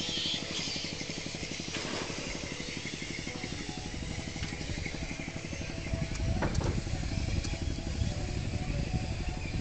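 Boat engine running steadily with a fast, even thumping. About six seconds in, a louder, irregular low rumble joins it.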